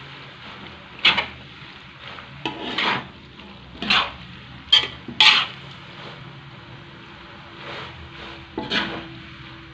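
A spatula scraping and tossing fried macaroni around a wok in about seven uneven strokes, over a low, steady sizzle of frying.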